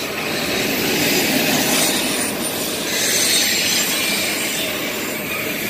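Freight train of autorack cars rolling past close by: the steady noise of steel wheels running on the rails.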